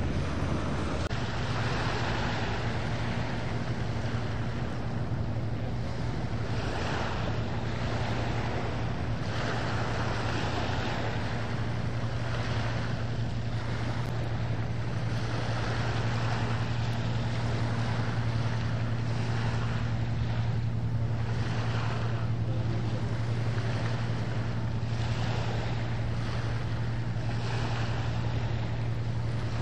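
Steady low drone of a boat engine under a wash of water and wind on the microphone. The hiss swells and fades every few seconds.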